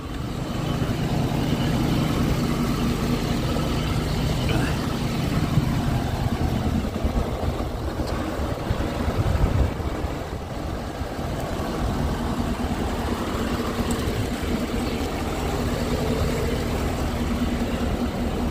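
Ford F-250 pickup's engine idling steadily.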